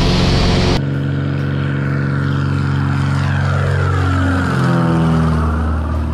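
Single-engine high-wing propeller plane at full climb power. For the first second it is heard loud from inside the cabin; then, after a cut, it is heard from the ground as it climbs out low overhead, its engine and propeller tone dropping in pitch as it passes and moves away.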